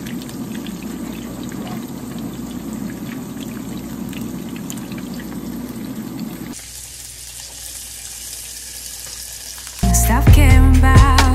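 Salmon fillets sizzling and crackling in hot oil in a nonstick frying pan. About six and a half seconds in, it turns to a quieter, thinner hiss. Near the end, loud background music with a beat takes over.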